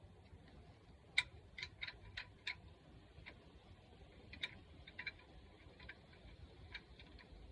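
Light, sharp clicks at irregular spacing, about five in quick succession a little over a second in, then a few scattered single ones, over a faint steady background.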